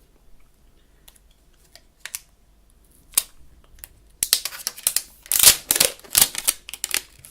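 Protective plastic film being peeled off a new iPhone. A few light clicks, then from about four seconds in a dense run of sharp crackling.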